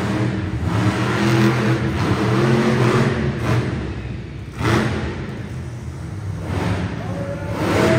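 Monster truck engine revving hard and held at high revs, dropping off about four seconds in. A sudden sharp burst follows, then the engine builds again.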